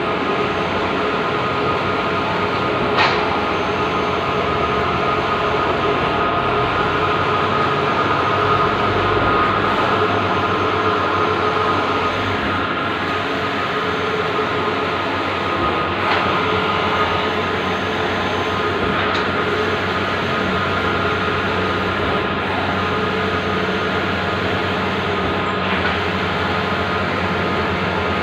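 Bluewin large-format outdoor digital printer running: a steady mechanical whir with a few sharp clicks scattered through it.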